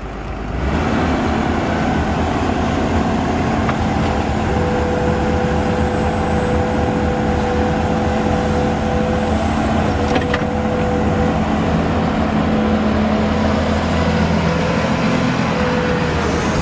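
Komatsu PC210 excavator working as it digs with a screening bucket: a steady diesel engine hum, with a hydraulic whine that comes in about four seconds in and returns in stretches near the end. One short click about ten seconds in.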